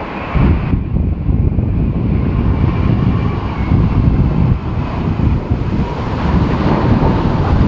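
Strong gusty wind buffeting the microphone, loud and uneven throughout, with the jet noise of an All Nippon Airways Boeing 787-9 airliner underneath it. A faint steady engine whine fades out within the first second.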